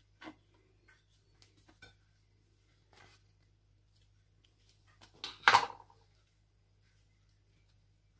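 Bread being pressed by hand into a plastic food processor bowl: soft rustling and a few light taps, with one much louder knock against the bowl about five and a half seconds in.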